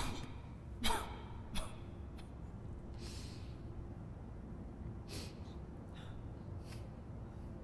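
A woman sobbing and gasping for breath: three sharp, catching sobs in the first two seconds, a long breath out about three seconds in, then fainter sniffs and short breaths.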